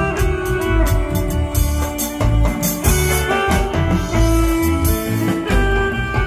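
Live band playing amplified dance music, with a drum kit and bass keeping a steady beat under held keyboard notes.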